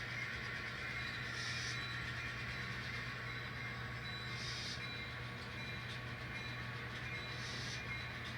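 An N scale model locomotive running slowly along the track, a steady small-motor hum and wheel-on-rail noise, with a short higher hiss about every three seconds.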